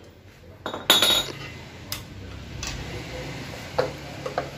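Metal hand tools clinking and clicking against an automatic transmission case as it is being dismantled: a sharp metallic clatter about a second in, then a few scattered light clicks.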